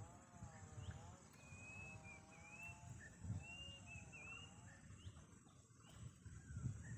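Faint whistled phrases of a green leafbird (cucak hijau mini), short slurred notes from about one and a half seconds to four and a half seconds in, with a few brief chirps later. Through the first half a lower, wavering bleat-like call runs beneath them.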